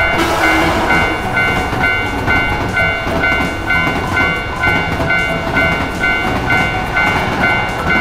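Japanese railroad crossing bell ringing its steady alternating two-tone kan-kan, about three strikes a second, while a high-speed train rushes past. The rushing noise starts abruptly as the train arrives and runs under the bell.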